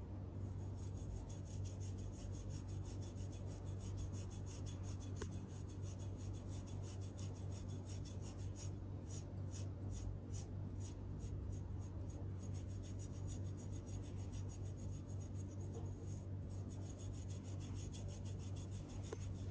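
Repeated short rasping or rubbing strokes, about two or three a second, over a steady low hum.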